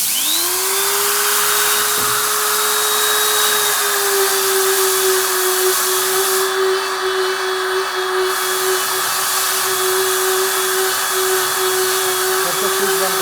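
Small electric grinder switched on: its motor whine rises in pitch as it spins up, then runs at a steady high speed.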